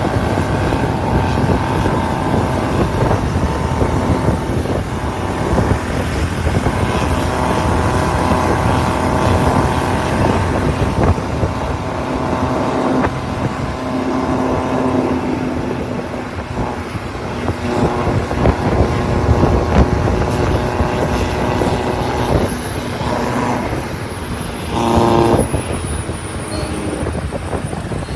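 Diesel vehicle engines running on a mountain road, their pitch rising and falling as they pass and work. A short horn blast sounds near the end.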